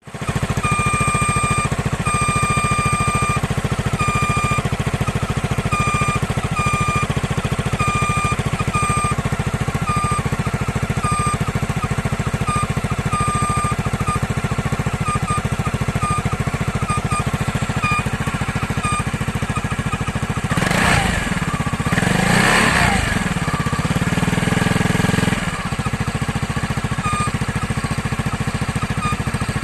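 Idling engine with an intermittent high-pitched squeal, repeating about once a second, which the owner puts down to an abnormal noise from the water pump. The squeal grows shorter and sparser and fades out about two-thirds of the way through. A louder stretch of rising and falling sound follows for about five seconds.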